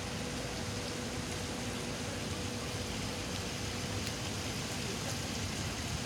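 Steady splashing hiss of fishing-pond aerators spraying water, with a faint steady hum that stops about five seconds in.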